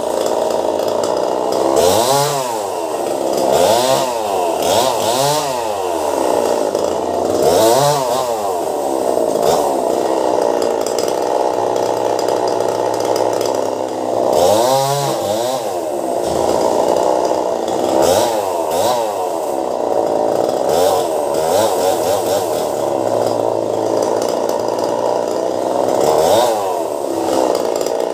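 Chainsaw engine running, revved up and back down again and again, its pitch climbing and dropping each time.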